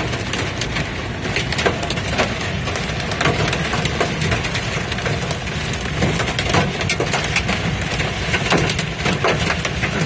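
Small hail and heavy rain pelting a truck's windshield and roof, heard from inside the cab: a dense rush of rain with many sharp, irregular ticks of hailstones striking, over road and engine noise.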